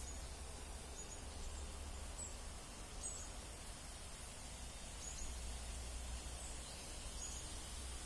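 Faint steady outdoor background noise with a low rumble underneath, and short high chirps about once a second.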